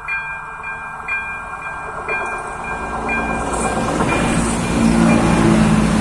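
ZV02 level-crossing warning bell dinging about twice a second. From about three seconds in, a České dráhy RegioSpider (Stadler Regio-Shuttle RS1) diesel railcar rolls through the crossing, its engine hum and running noise growing loud and nearly covering the bell.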